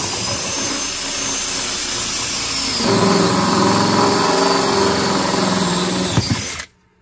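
Cordless drill running a hole saw through the thin sheet-metal floor of a ProMaster van, a steady cutting whine. It gets louder about three seconds in and stops suddenly near the end.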